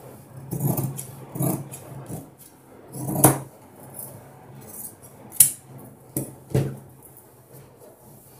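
Large steel tailor's shears cutting through cotton cloth in a series of separate snips, the blades closing with sharp metallic clicks.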